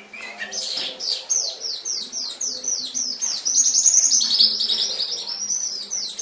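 Domestic canary singing one long, unbroken song of fast trills, each made of quickly repeated down-slurred notes, changing from one trill to the next. It grows louder toward the middle and stops right at the end.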